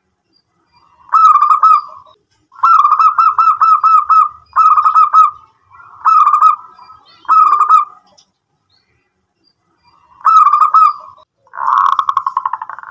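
Zebra dove (local Indonesian perkutut) cooing in seven short phrases of rapid, rolling staccato notes, with a pause of about two seconds before the last two. The final phrase is harsher and faster.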